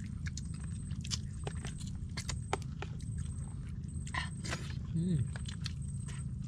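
Chewing and lip-smacking of people eating by hand, many short wet clicks, over a steady low rumble. A short hummed voice sound rises and falls about five seconds in.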